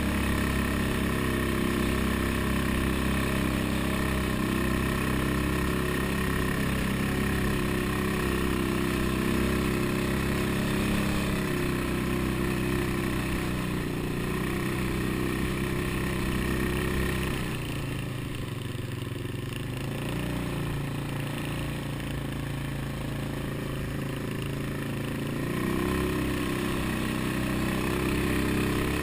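ATV engine running steadily as the quad rides a rough dirt trail. Its note drops lower and quieter for several seconds past the middle, then picks up again near the end.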